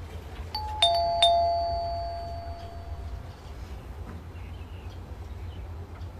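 Doorbell chime ringing a two-note ding-dong about a second in, the two strikes about half a second apart and ringing out over about two seconds, over a steady low hum.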